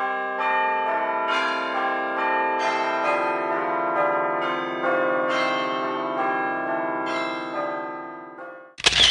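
Bell-like chime notes struck one after another about every half second, each ringing on and overlapping the next, slowly fading near the end. A short sharp clatter comes right at the end.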